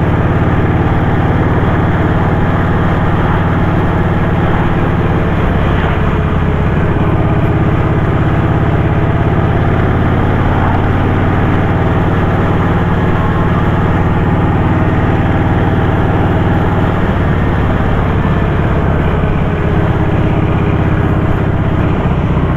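Kawasaki Vulcan 1700 Voyager's V-twin engine running steadily under way, with road and wind noise over it; the engine note shifts about a third of the way in and again near the three-quarter mark.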